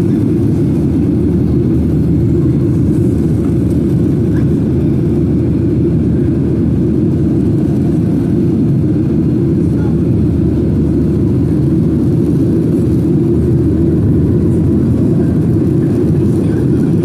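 Steady low-pitched drone inside a Boeing 737-800's cabin in the climb after takeoff: its CFM56-7B turbofans at climb power and air rushing past the fuselage.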